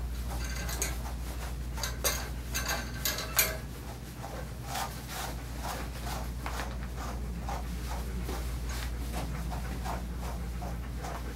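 A grooming brush being stroked through a German Shepherd's coat, short scratchy strokes a few times a second, with a few sharper clicks about two to three seconds in, over a steady low hum.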